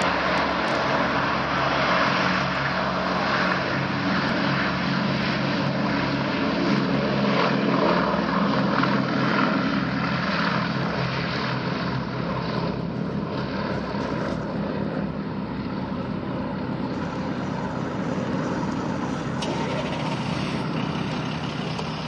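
B-17 Flying Fortress's four Wright Cyclone radial engines running as the bomber rolls along the runway, a steady propeller drone that eases off somewhat about halfway through as the plane moves away.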